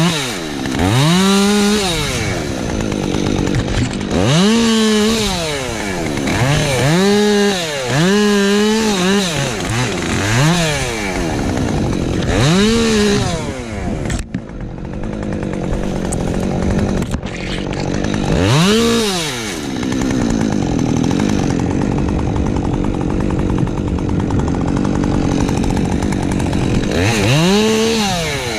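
Husqvarna 550 XP Mark II two-stroke chainsaw revving up and down over and over in quick throttle bursts. In the second half it holds a steadier speed for several seconds, then revs up and down again near the end.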